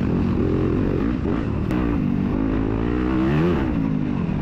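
2021 Yamaha YZ250FX's 250 cc single-cylinder four-stroke engine running under load, its pitch rising and falling with the throttle. It climbs to a peak about three and a half seconds in, then drops as the throttle is rolled off.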